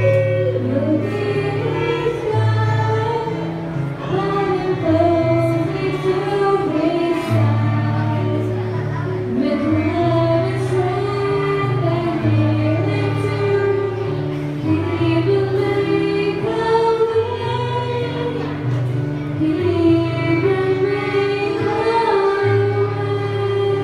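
A girl singing a song into a microphone, accompanied by violin, clarinet and electronic keyboard holding sustained bass notes under the tune.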